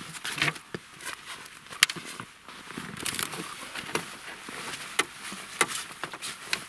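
Gear being handled: irregular sharp clicks and knocks with rustling between them, the loudest a little under two seconds in.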